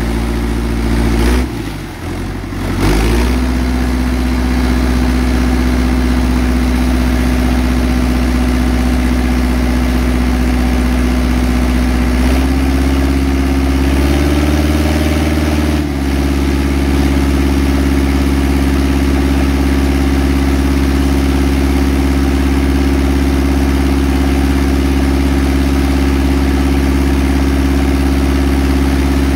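Engine-driven deck wash pump running steadily, with the hiss of a high-pressure water jet blasting seed shell across the deck and overboard. There is a short break about two seconds in, and the engine note briefly shifts about fourteen seconds in.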